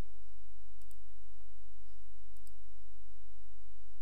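Two computer mouse double-clicks, about a second and a half apart, over a steady low electrical hum.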